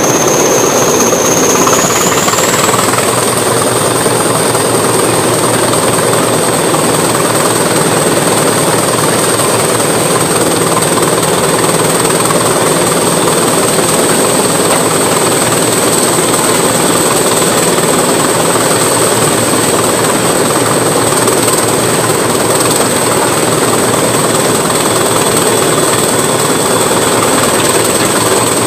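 Class 20 diesel locomotive's English Electric eight-cylinder engine running hard under power, heard close up from the cab window. A high turbocharger whistle rises in pitch about two seconds in, then holds steady over the loud, constant engine clatter.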